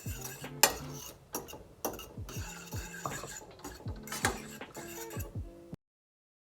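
Metal utensil clinking and scraping against cookware while stirring, a quick irregular string of clicks and knocks, with faint background music underneath. All sound cuts off abruptly near the end.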